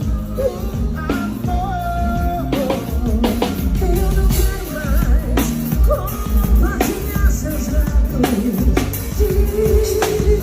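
Forró band music with a drum kit keeping a steady beat under a melody line, with singing.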